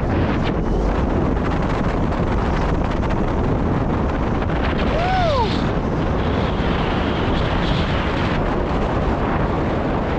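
Steady wind noise rushing over the camera microphone during a parachute canopy glide, with a brief falling call about halfway through.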